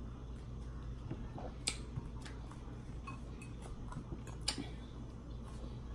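A metal fork clicking faintly against a glass salad bowl and plate, with two sharper clicks, about one and a half seconds in and again about four and a half seconds in, over a low steady hum.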